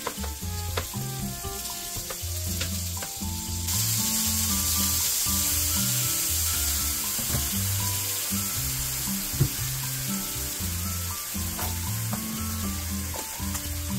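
Minced beef sizzling in a non-stick frying pan, the hiss swelling about four seconds in and then holding steady, with a few taps of a wooden spatula against the pan early on as the meat is broken up. Background music plays throughout.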